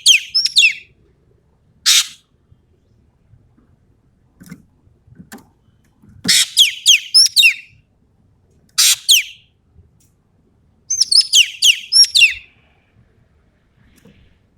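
Sumatran ekek keling singing in short bursts of rapid, sharp, high whistled notes that sweep downward, five or so bursts with pauses between them.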